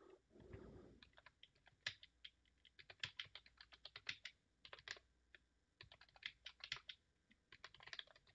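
Faint typing on a computer keyboard: an irregular run of quick key clicks as a sentence is typed, after a soft low rustle near the start.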